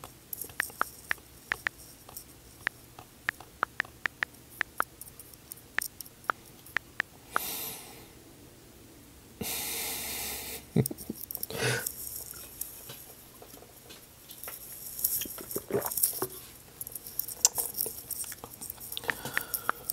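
Quiet stretch with no speech, broken by scattered small clicks at about one or two a second and two short bursts of hiss close to the microphone, the second and louder one lasting about a second.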